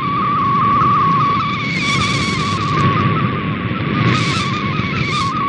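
Digital picture signal from a shortwave broadcast, received by radio: a single warbling tone near 1 kHz that wavers continuously in pitch over a constant hiss of static, the hiss brightening briefly about 2 seconds in and again about 4 seconds in.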